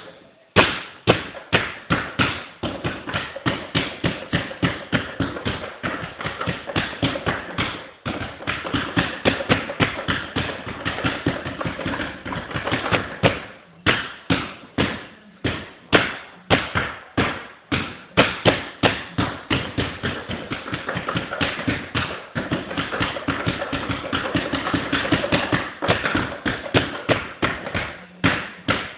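A basketball dribbled hard and fast on a hardwood floor, the bounces coming in a quick steady rhythm of several a second, with a couple of short breaks.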